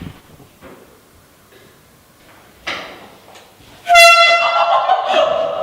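A loud air horn blast that starts suddenly about four seconds in and holds a single blaring note, sagging slightly in pitch as it goes on.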